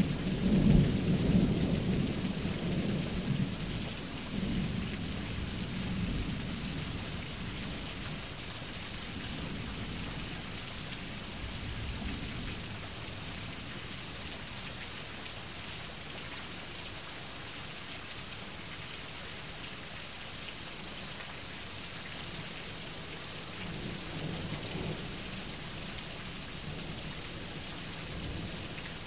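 Thunderstorm: heavy rain falling steadily, with thunder rumbling over the first few seconds and fading, then a weaker roll of thunder a few seconds before the end.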